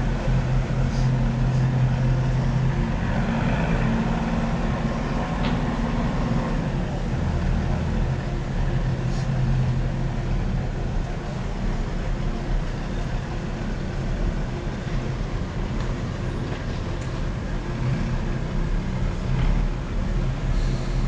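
Steady low engine hum from a tender boat, loudest for the first six seconds or so and then settling a little lower.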